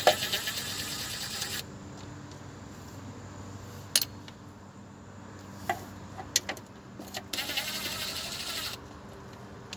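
Ratchet wrench clicking in two runs of about a second and a half each, loosening the 10 mm bolts of a CVT transmission pan, with a few single sharp metal clicks in between.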